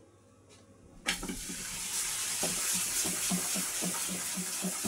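A buttered slice of bread sizzling in a hot non-stick frying pan. The steady hiss starts suddenly about a second in, with small crackles as the butter melts into the pan.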